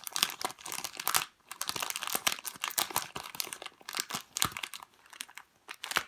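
Crinkly plastic packaging of a squishy toy being handled and opened, in irregular bursts of crackling with short pauses.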